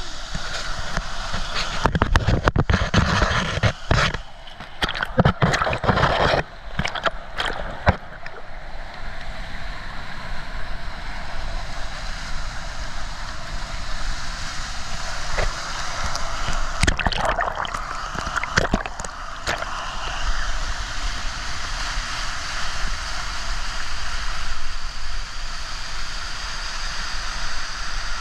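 Whitewater of McDonald Falls rushing and splashing in a steady roar of noise, heard close from water level. Loud, sudden bursts of splashing and knocking right at the camera come between about two and eight seconds in, and again briefly around seventeen to nineteen seconds.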